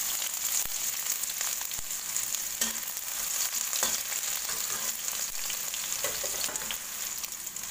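Chopped shallots and garlic sizzling in hot oil in a non-stick pan. A few clicks and scrapes come from a stainless-steel spatula as they are stirred.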